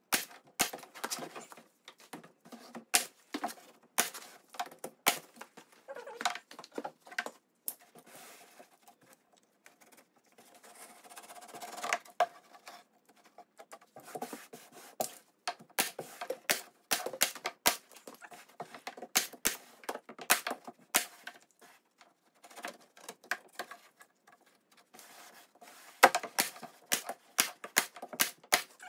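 Porter-Cable pneumatic staple gun firing staple after staple to fasten carpet into a dog box drawer: sharp, irregularly spaced shots, several a second in clusters.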